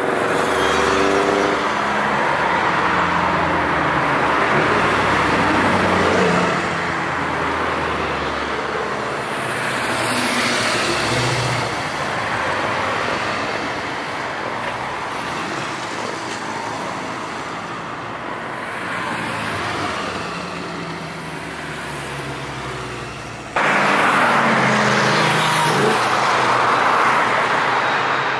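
A procession of cars, classic muscle cars among them, driving past close by, with engines rising and falling in pitch as they pass over a steady wash of tyre and road noise. The sound changes abruptly about three-quarters of the way through, to another close pass with engines revving.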